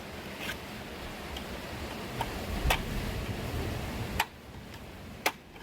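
A few sharp, irregular clicks and taps, about six in all, over a low rumble that cuts off about four seconds in.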